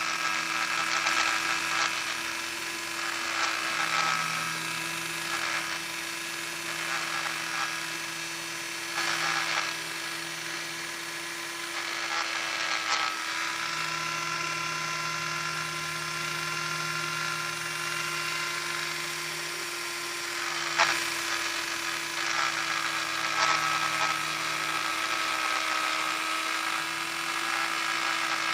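Small electric sander running steadily, a constant motor buzz under the hiss of sandpaper on the surface, with a few brief louder scrapes and one sharp knock about two-thirds of the way through.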